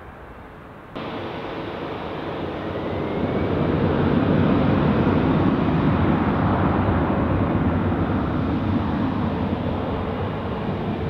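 Jet airliner engines running loud, the noise jumping up suddenly about a second in, building for a few seconds and then easing off slowly, with a faint rising whine about three seconds in.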